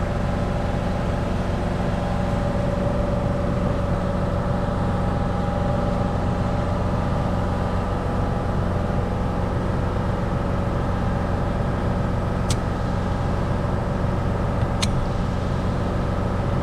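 A car's engine running at a steady speed, an unchanging low drone with a constant hum, with two short clicks near the end.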